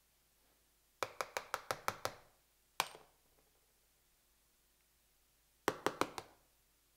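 Hard metal tools struck repeatedly against a smartphone's glass screen. There is a quick run of about seven sharp clicks about a second in, a single click about a second later, and four more near the end, this last set from the tips of side cutters.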